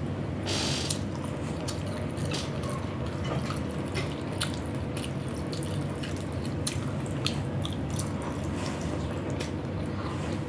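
Close-miked eating sounds while chewing chicken wings and rice: a scattering of short wet clicks and smacks over a steady low hum.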